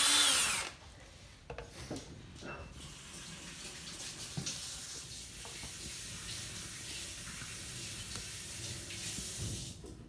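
DeWalt 20V cordless drill boring into a black oak round, its motor winding down and stopping within the first second. After that a faint steady hiss, with a few light taps and clicks as a small wooden peg is pushed into the freshly drilled holes.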